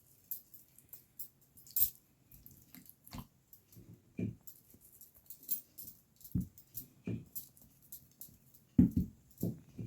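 Raw chicken pieces being handled and rubbed with salt and pepper for marinating: irregular short handling noises and soft taps, the loudest a little before the end.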